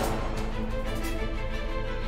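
Background music with sustained instrumental tones and a steady beat.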